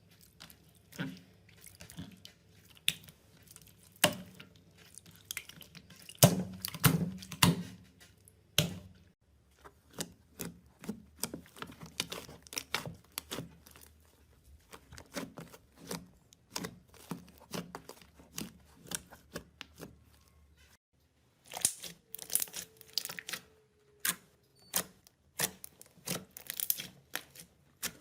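Slime being squeezed, stretched and poked by hand: a stream of irregular sticky crackles, pops and squishes. There is a brief silent break about three quarters of the way through.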